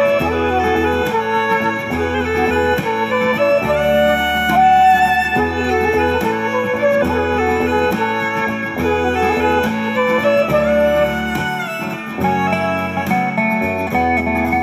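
Instrumental background music with a steady bass beat and a melody of plucked and bowed strings.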